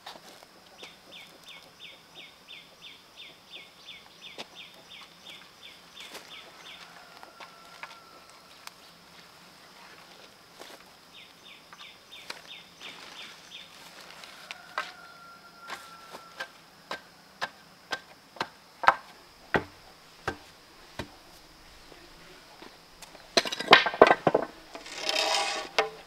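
Sharp knocks and taps of work at the base of a bamboo post, growing louder and more frequent, then a loud clatter and scrape of bamboo poles near the end. Earlier, a chirping call repeats about four times a second in two runs.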